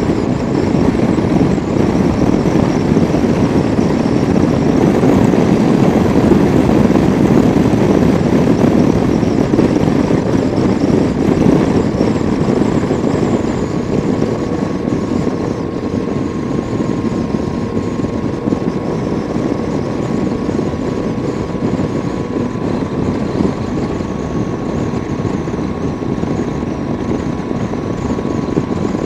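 Wind rushing over a helmet-mounted camera on a motorcycle at road speed, with the motorcycle's engine running steadily underneath and a faint steady whine.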